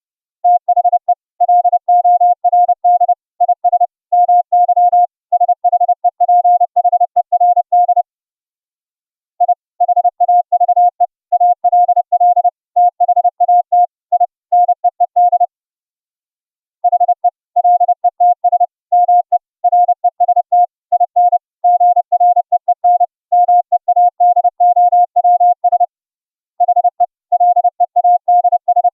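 Morse code (CW) audio tone generated by FLdigi, a single steady pitch keyed on and off in quick dots and dashes, sent over the internet as Opus-coded audio. The sending runs in groups with three short breaks.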